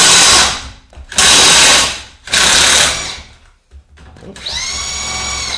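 Metabo cordless impact wrench on a seized anti-roll bar drop link nut: three loud bursts of hammering in the first three seconds. About four seconds in, the motor spins up with a rising whine and runs steadily without hammering as the nut starts to turn.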